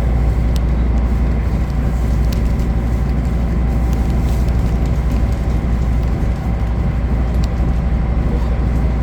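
Tour boat's engine running at a steady cruising drone, a deep constant hum with a few faint ticks.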